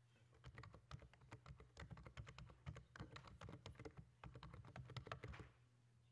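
Typing on a computer keyboard: a quick, faint run of key clicks lasting about five seconds as a web search is entered.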